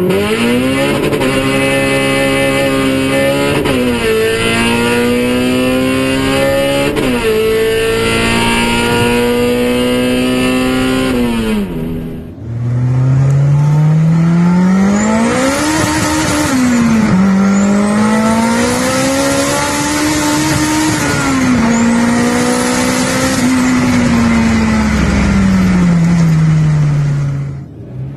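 Honda City's engine under hard acceleration, the revs climbing and then dropping back at each gear change, twice in the first dozen seconds. After an abrupt cut about halfway, another pull with the revs rising, dipping and falling away again.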